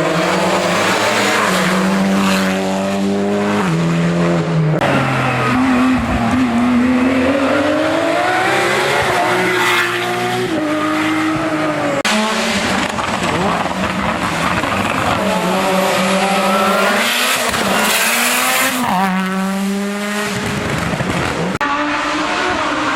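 Race car engines revving hard up a hillclimb course, the engine note climbing and then dropping at each gear change. Several cars are heard in turn, the sound changing abruptly from one to the next.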